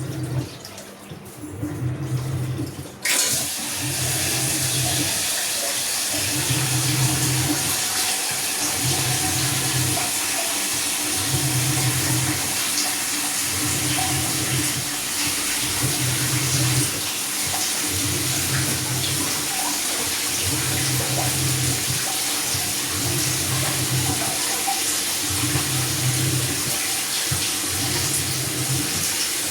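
Samsung top-load washing machine filling with water: a steady rush of water starts suddenly about three seconds in. Under it, a low hum comes and goes about every two seconds.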